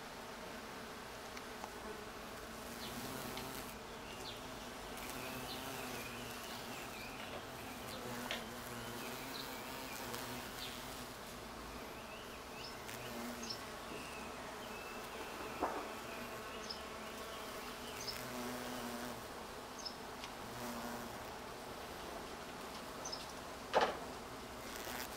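Carpenter bees buzzing at wisteria blossoms: a steady low hum that swells and fades as the bees fly close and away. A short sharp knock comes near the end.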